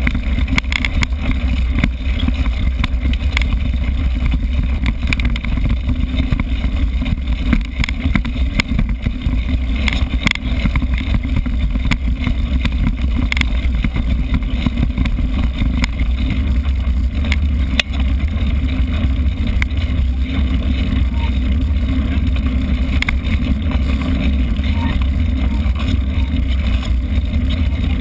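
Wind buffeting a GoPro Hero camera on a moving mountain bike, a heavy steady rumble, with frequent small rattles and knocks as the bike runs over rough trail ground.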